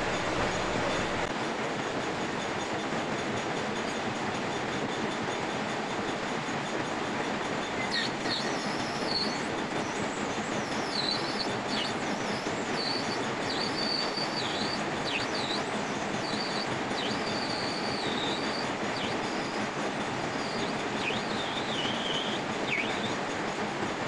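A lathe running while the cutting tool turns a grooved solid PVC cylinder, a steady machining noise. From about a third of the way in, a high, wavering squeal comes and goes over it.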